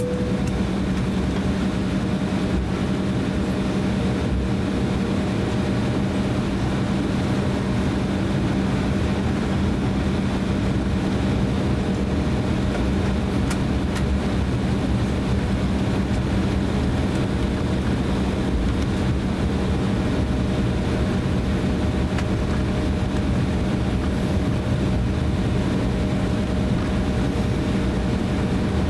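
Cabin noise of an Embraer E170 airliner taxiing, its twin GE CF34 turbofan engines at low thrust, with a steady low hum under the rush.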